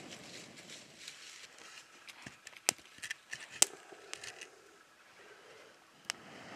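Soft blowing into glowing charcoal, then several sharp wooden knocks and clatters as split firewood is laid over the coals, loudest about two and a half and three and a half seconds in, with one more knock near the end.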